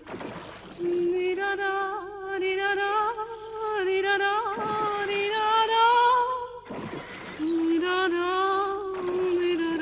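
A woman's voice singing slow, long-held notes. There are short breaths about a second in and again near seven seconds in, and the line climbs higher toward the middle.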